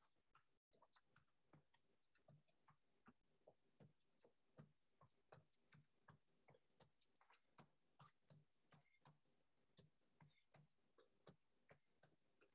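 Near silence, with faint soft taps about twice a second from steps on the floor during an aerobics toe-touch move.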